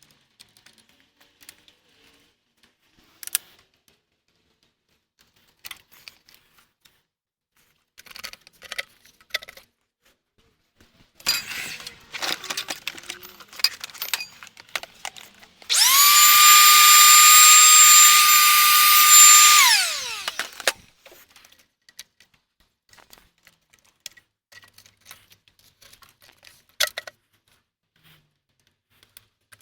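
A cordless power tool runs at a steady high whine for about four seconds past the middle, then spins down with falling pitch; it is working the 11 mm bolts and nuts that hold the intake manifold. Clicks and metal clatter of hand tools and parts come before it.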